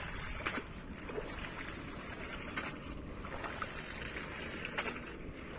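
Steady wind noise on the microphone, with three short sharp clicks about two seconds apart.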